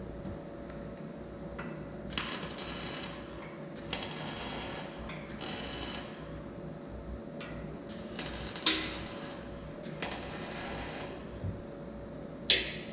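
Electric arc welding on a steel square-tube frame: five short welds of about a second each, with pauses between them, over a steady shop hum. A short sharp sound comes near the end.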